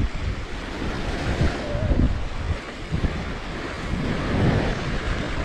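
Baltic Sea surf washing up on the beach, with gusts of wind buffeting the microphone.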